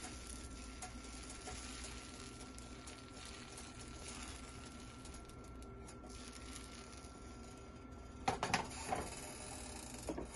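Crepe batter cooking in a hot nonstick frying pan with a faint steady hiss. About eight seconds in comes a short burst of clattering and scraping as the ladle and pan are handled.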